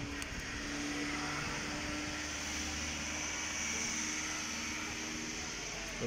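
A motor vehicle's engine running steadily with a low hum, swelling slightly about a second in.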